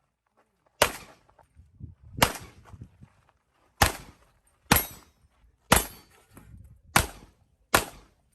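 Seven handgun shots fired one at a time at uneven intervals, each a sharp crack with a short echo, during a practical shooting course of fire.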